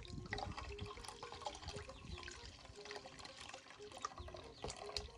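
Water poured from a plastic jug through a plastic strainer of squeezed passion fruit pulp, trickling into a metal pot of juice, with juice still running and dripping from the strainer after the pour; faint and irregular, with small patters and clicks.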